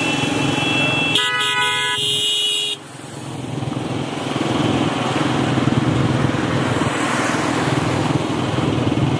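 A vehicle horn sounds for about a second and a half, starting about a second in, over the steady running of a motor vehicle's engine.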